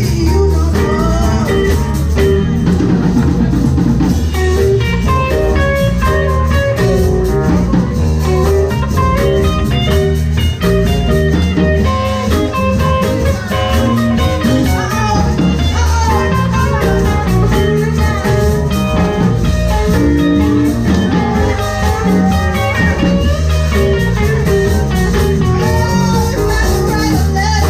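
Live blues band playing a blues number, with guitar and drum kit and some singing.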